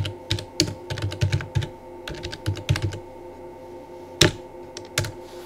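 Computer keyboard typing: a quick, irregular run of keystrokes, then a pause and two louder single clicks near the end.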